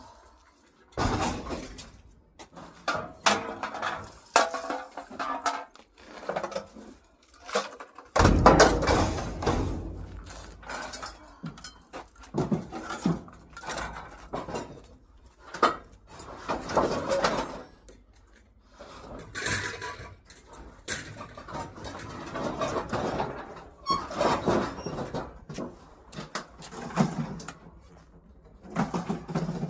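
Junk being handled and moved about: an irregular run of knocks, clatters and rustling, with the heaviest thud about eight seconds in.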